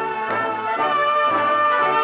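Orchestral background music led by brass, with sustained chords and a steady bass pattern underneath.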